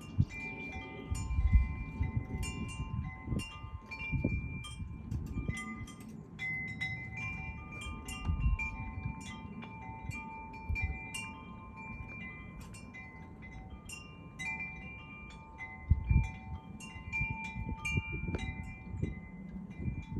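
Metal wind chimes ringing irregularly in gusty wind, several pitched tubes struck over and over and ringing on. Low gusts of wind rumble on the microphone underneath.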